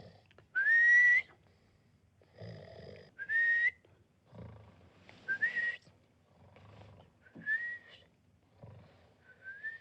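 Comic whistling snores, five times about two seconds apart: each is a rasping snore on the in-breath, followed by a short whistle on the out-breath that rises in pitch. The first whistle, about a second in, is the loudest.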